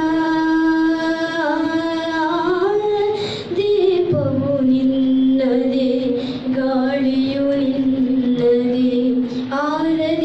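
A boy sings a Kannada light song (bhavageethe) into a microphone, holding long drawn-out notes. About four seconds in, the melody drops to a lower note that is held until near the end, when it rises again.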